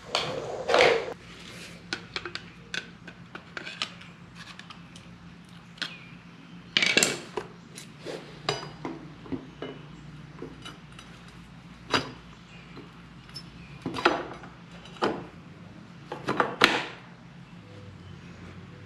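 Scattered metallic clinks and knocks as a motorcycle's front brake caliper is handled and slid back over the brake disc, several sharper clacks among lighter taps, over a low steady hum.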